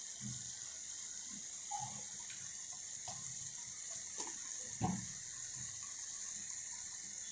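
Raw chicken pieces dropped into a kadai of frying masala, several soft thuds over a steady sizzle. The loudest drop comes about five seconds in.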